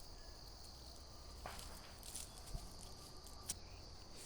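Faint steady high-pitched drone of insects, with a few scattered clicks and rustles.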